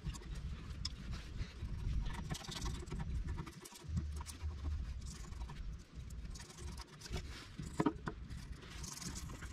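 Hand work on a sheet-steel fuel tank with a razor-blade scraper and a shop rag: irregular small scrapes, rubs and clicks over a low rumble.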